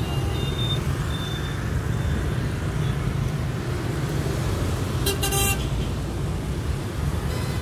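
Busy road traffic: a steady rumble of motorbike and car engines, with one vehicle horn honk lasting about half a second, about five seconds in.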